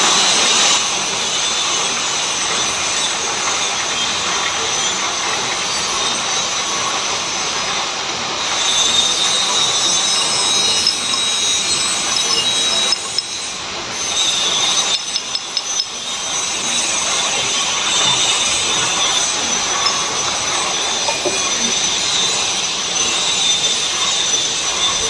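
Metal lathe running and cutting, a steady harsh grinding noise with high squealing tones over it, dipping briefly about halfway through.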